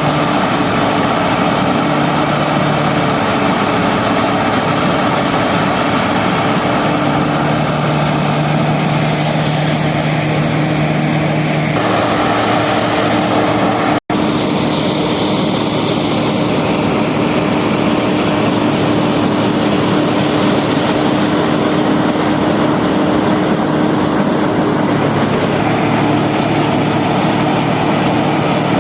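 Fiat tractor's diesel engine running steadily under load, driving a rice harvesting machine, with its steady hum over the harvester's mechanical clatter. The sound breaks off for an instant about halfway through.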